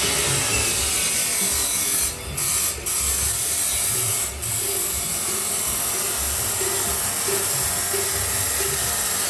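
Angle grinder cutting stainless steel pipe: a loud, steady grinding hiss that drops off briefly three times, between about two and four and a half seconds in.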